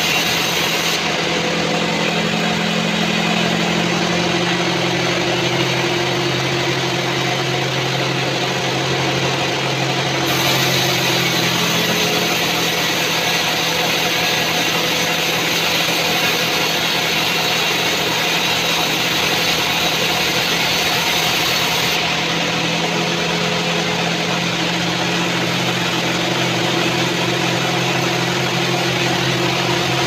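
Sawmill band saw cutting lengthwise through a mahogany log: a steady hiss of the blade in the wood over the machine's constant hum.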